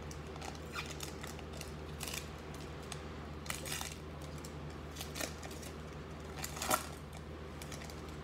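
Foil trading-card pack wrapper being torn open and crinkled by hand, a string of short crackly rustles with the loudest near the end, over a steady low hum.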